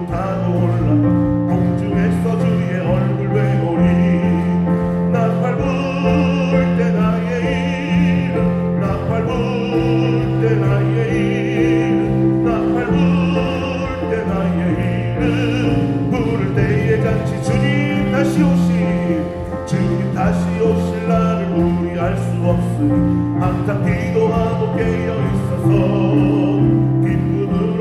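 A gospel praise band playing a worship song, with electric bass, drums and keyboard under singers holding long notes with vibrato.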